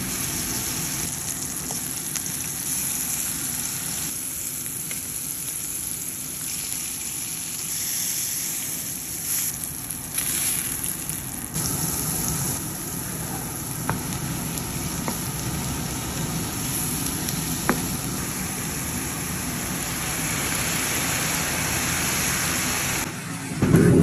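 Beef fillet steaks, then chopped shallots and mushrooms, sizzling in butter in a frying pan, a steady hiss with an occasional small pop. Near the end it jumps to a louder, deeper rush as the cognac in the pan is flambéed.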